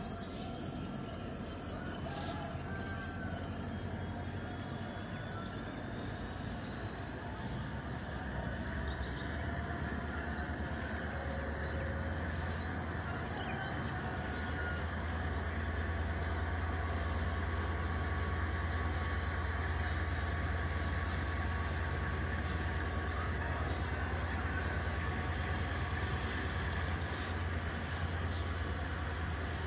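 Diesel locomotive engine idling with a steady low hum while the coal train stands waiting, a little louder in the second half. Insects buzz steadily throughout, with short trains of rapid chirps repeating every few seconds.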